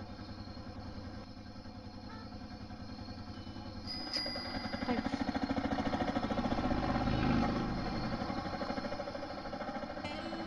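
Auto-rickshaw's small engine running with a rapid, even beat, growing louder about four seconds in as it pulls away, then fading toward the end.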